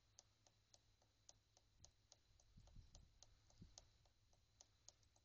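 Near silence with faint, regular ticking, about three ticks a second.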